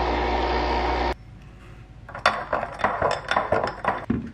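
A coffee machine runs with a steady hum as it dispenses into a mug, cutting off about a second in. After a short pause a metal spoon clinks rapidly against a ceramic mug as the coffee is stirred.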